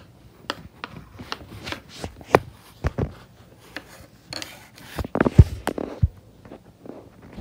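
Irregular scraping, tapping and knocking of hard objects, with the loudest cluster of thumps about five seconds in.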